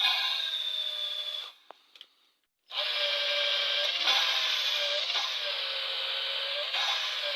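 Electric drill lapping a VAZ-2103 engine valve into its seat, its whine dipping and rising about once a second over a gritty grinding. It stops for about a second near the start, then runs on.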